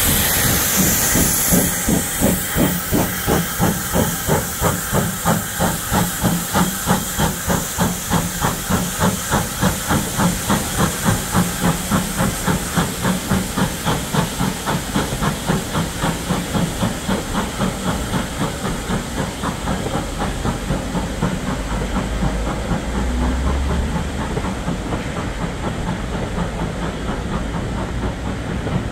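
Steam locomotive working hard with a passenger train: a loud hiss of steam, then a fast, even exhaust beat as it goes away. After about twenty seconds the beat fades into the steady rumble of the coaches rolling over the rails.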